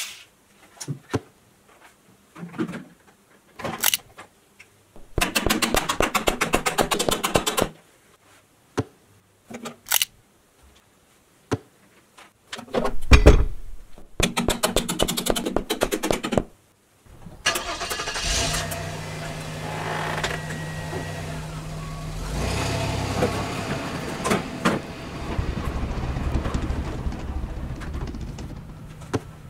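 Plastic clicks and a toy drill's rapid ticking rattle, then an engine cranking with a loud low burst about halfway through and running steadily, rising and falling a little, until near the end.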